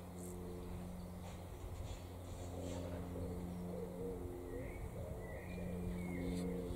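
Pigeon cooing in low, repeated phrases, with another bird giving a thin, higher call about two-thirds of the way through.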